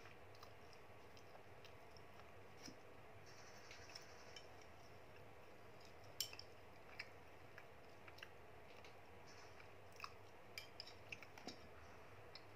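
Faint light clicks and taps of wooden chopsticks and a wooden spoon against a plastic food container and the food in it. The sharpest tap comes about six seconds in and several more come close together near the end, over a low steady hiss.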